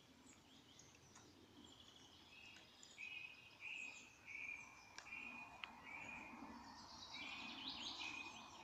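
Faint birdsong: a short, high note repeated over and over from about three seconds in, with busier chirping near the end, and a few faint clicks.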